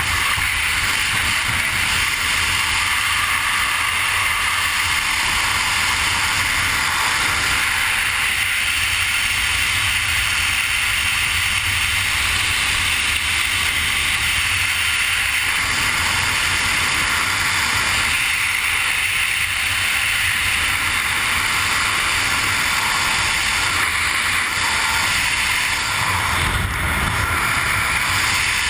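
Steady rushing freefall wind on a skydiver's camera microphone, with a low buffeting rumble that gets heavier near the end.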